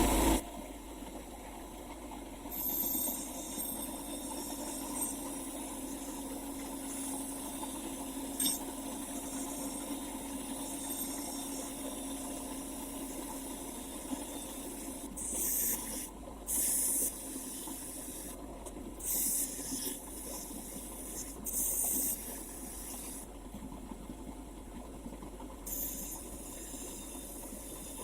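Short bursts of hissing spray or air, about six of them and each under a second, over a steady machine hum.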